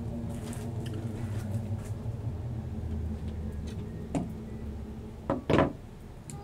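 A steady low hum, with a click about four seconds in and two short scraping noises a little after five seconds as hands work at the painting's surface.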